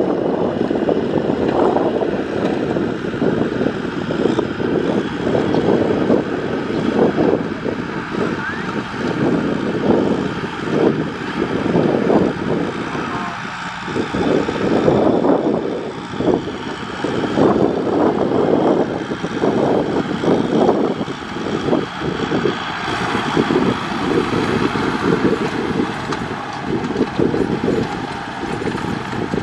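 Kubota M6040SU tractor's diesel engine running steadily under load as it pulls a rotary tiller through dry soil.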